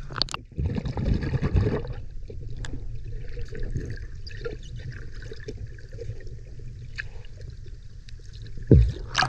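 Muffled underwater water noise picked up by an action camera held below the surface: louder sloshing in the first couple of seconds, then a steady low rumble with faint ticks, and one sharp thump near the end.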